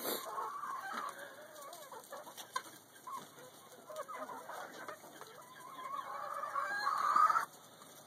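Chickens clucking with short, repeated calls, and a longer, louder call building near the end that cuts off suddenly.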